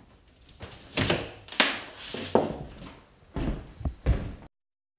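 A drywall utility saw rasping through drywall in a few short strokes, followed by several dull thumps. The sound cuts off abruptly near the end.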